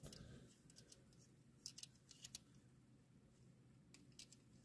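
Near silence with a few faint small clicks as plastic rim pieces are handled and pressed onto the wheels of a Majorette die-cast toy car.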